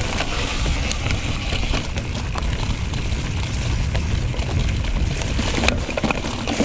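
Heavy wind buffeting on the camera microphone from a mountain bike riding fast down a rough trail, with tyres crunching over the ground and the bike rattling in frequent short irregular clicks.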